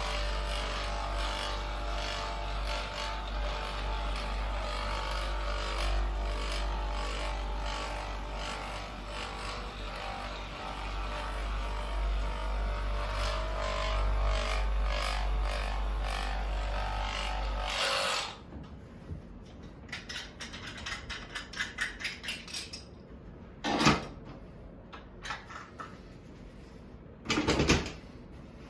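Handheld electric massage tool running with a steady rapid buzzing hum for about eighteen seconds, then switched off abruptly. A short run of quick light taps follows, then two loud sharp thumps a few seconds apart near the end.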